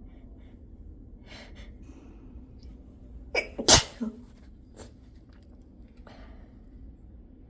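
A woman sneezing once, sharply, about three and a half seconds in, after a couple of short breaths, with a small follow-up burst just after the sneeze and faint sniffs later.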